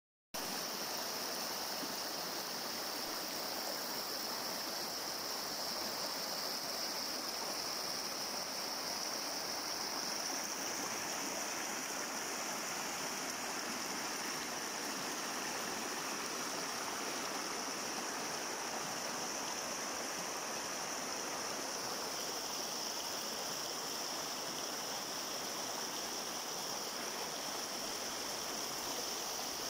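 Shallow river rushing steadily over a rocky, stony bed, with a steady high-pitched hiss on top.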